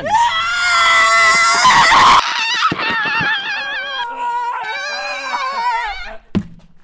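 A person screaming: a long, wavering high-pitched scream that drops lower after about two seconds and keeps wailing, breaking off shortly before the end.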